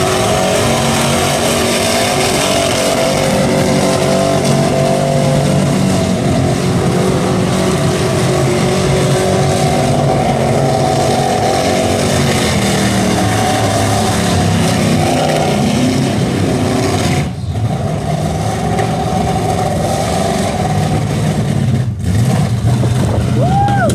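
Chevrolet V8 in a Subaru WRX STi RA held high in the revs during a burnout, tyres spinning on the skid pad, with the revs dropping sharply twice near the end. It is running rough from spark scatter off a cracked distributor rotor.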